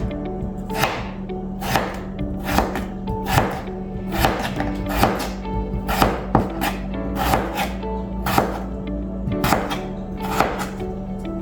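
Knife chopping raw potatoes into French-fry sticks on a cutting board, a cut about once a second, over background music.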